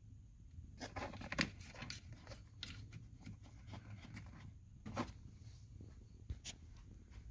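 Scattered clicks and rustling handling noises over a low steady hum, with the sharpest clicks about a second and a half in and again about five seconds in.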